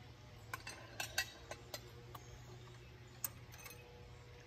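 Light metallic clicks and clinks of pushrods being handled in the opened valve gear of a small tractor diesel: a quick run of about six in the first two seconds, then a sharper one a little after three seconds.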